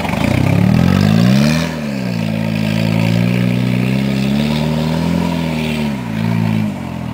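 Peugeot 306 1.9 turbo-diesel engine revving under load: the revs climb for about a second and a half, drop back, then hold fairly steady before easing off near the end.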